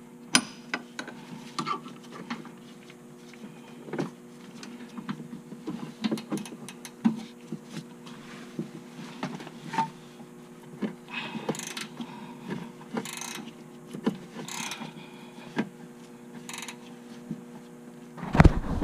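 Hand tools working on a C6 Corvette Z06's suspension to lower it on the stock height-adjuster bolts: irregular metallic clicks and knocks with a few short rasping bursts.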